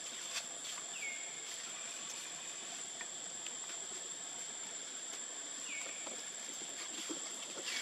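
Steady high-pitched insect drone, with two short falling calls, one about a second in and one near the six-second mark, and a few faint clicks.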